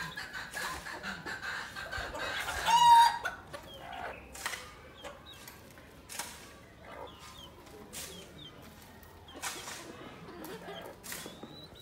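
Free-range chickens clucking, with one loud call from the flock about three seconds in, then short high chirps and scattered light clicks.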